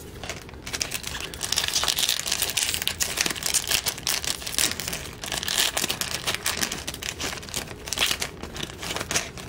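A trading-card pack wrapper being torn open and crinkled by hand, a dense run of crackling that starts about a second in and goes on until near the end.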